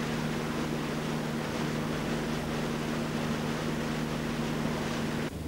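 Motorboat under way: its engine running with a steady hum, over the rush of the wake and spray along the hull. It cuts off suddenly near the end.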